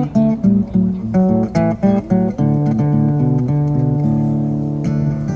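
Acoustic guitar picking a melody over held lower notes: the instrumental introduction of a song, with no voice.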